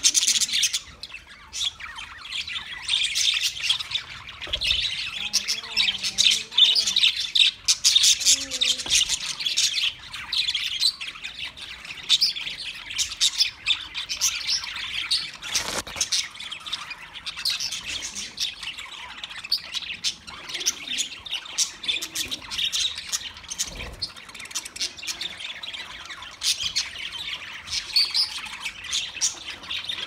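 A flock of budgerigars chattering: many birds chirping at once in a dense, unbroken stream of short high calls.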